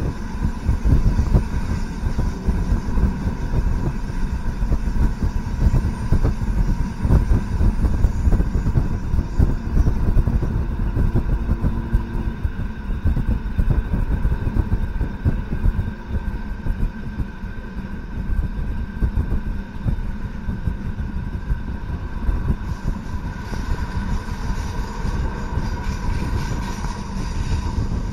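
Fiat ALn 668 diesel railcar running along the line, heard from on board: a steady low rumble from the engine and wheels, with constant rattling and a steady hum.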